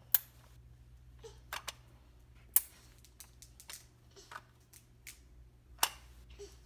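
Small plastic dollhouse pieces clicking and clacking as they are handled and fitted together. There are three sharp clacks, one just after the start, one in the middle and one near the end, with softer clicks between them.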